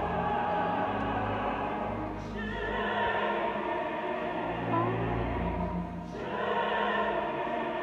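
Live opera: chorus and singers with the pit orchestra, sustained notes sung with vibrato, the music dipping briefly about six seconds in.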